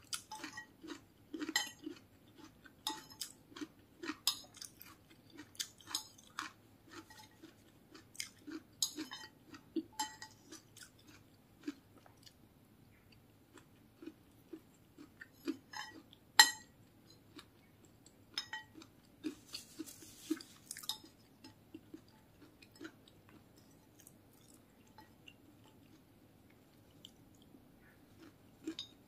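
Close-up chewing and crunching of mouthfuls of fried rice and fried tempeh fritter, a steady run of short wet mouth clicks and crunches. One sharper, louder click comes about halfway through.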